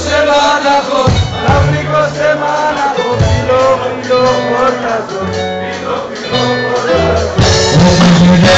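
Live Pontic Greek folk music with singing, played by a band with a steady bass line; it gets louder near the end.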